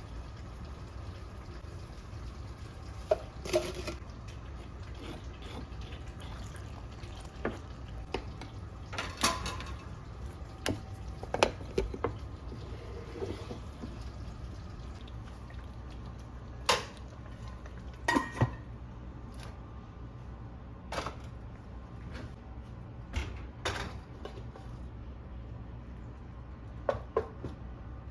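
Dishes and utensils clinking and tapping now and then, a dozen or so separate short knocks, a few ringing briefly, over a steady low hum.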